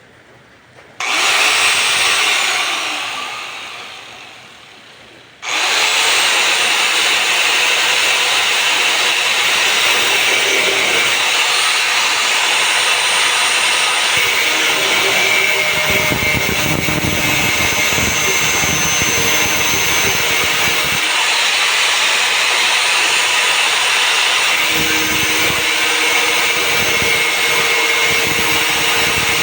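Angle grinder cutting through a water faucet. It is switched on about a second in and left to spin down, then started again and runs steadily. Two stretches of rougher, lower grinding mark the disc biting into the metal.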